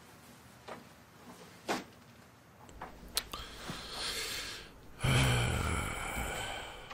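Jacket fabric rustling as it is shrugged off and pulled from the arms, loudest over the last two seconds, with a few light clicks and knocks before it.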